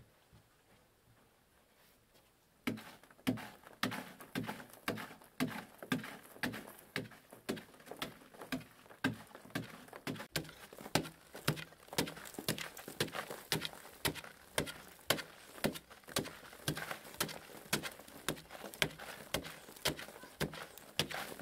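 A hand tool chopping into a hard, packed-earth wall: a steady run of dull strikes, about two to three a second, starting a couple of seconds in.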